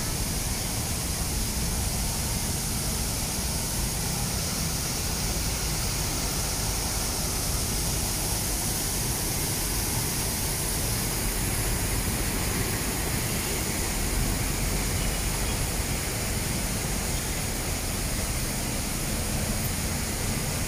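Steady splashing hiss of a public fountain's water jets, with street traffic running underneath.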